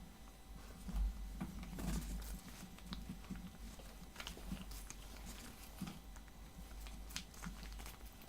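Green slime being squished and worked in rubber-gloved hands: faint, scattered wet squelches and small sticky clicks, a little louder about one to two seconds in.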